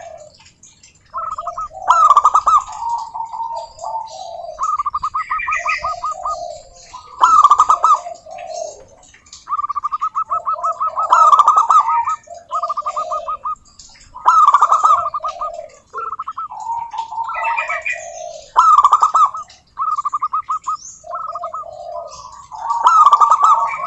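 Zebra doves singing their staccato cooing song. Each phrase is a quick rattling run of short notes followed by lower coos, repeated every few seconds, with phrases from more than one bird overlapping.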